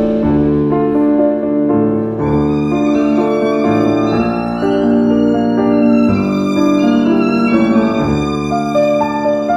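Instrumental concert music: a melody of long, held notes that change every second or so over a lower bass part, with no drums.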